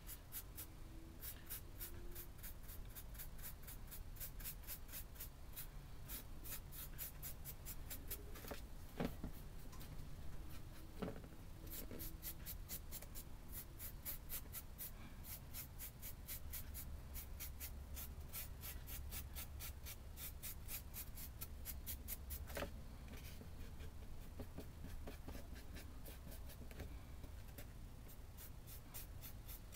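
A nearly dry paintbrush scrubbing quickly back and forth over a textured brick surface in dry-brush strokes, a faint, steady run of soft scratchy strokes several times a second, with a few light knocks along the way.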